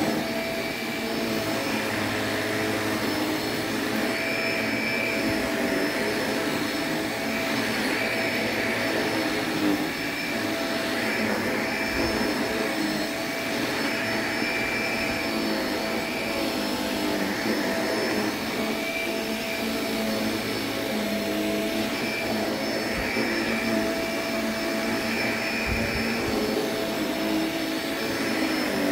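Corded Shark upright vacuum cleaner running steadily while it is pushed back and forth over a low-pile rug, its tone shifting slightly with each stroke.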